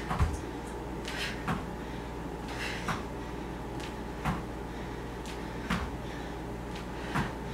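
Bare feet landing squat jumps on a yoga mat over a tile floor: a dull thud about every second and a half, six in all, each just after a sharp breath.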